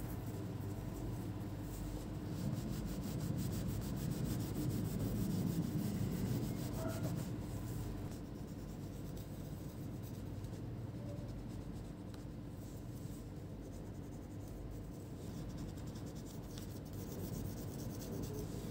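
Rubbing on the copper contact plate of an Asus Zenbook UX303's heat-pipe heatsink, cleaning old thermal paste off it. A continuous scrubbing that is loudest a few seconds in, over a low steady hum.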